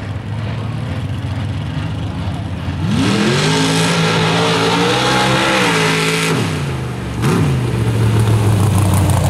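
Lifted pickup truck engine idling at the line, then revving hard as the truck launches on a dirt drag track, its pitch climbing and holding for about three seconds with dirt spraying off the tires. The pitch then drops, blips up once briefly about a second later, and the engine runs on loudly.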